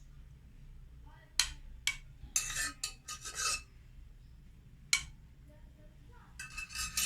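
A metal spoon scraping and clinking against cookware, with a few sharp taps about one and a half, two and five seconds in, and bursts of scraping between them.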